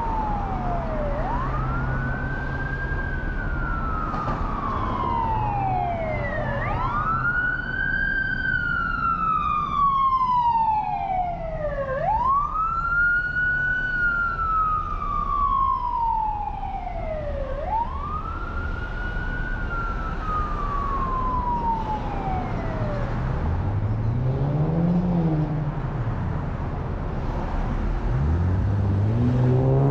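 Emergency vehicle siren in a slow wail: each sweep rises quickly and falls slowly over about five seconds, four times, then stops. Near the end a vehicle engine revs up as it accelerates, over steady traffic and road noise.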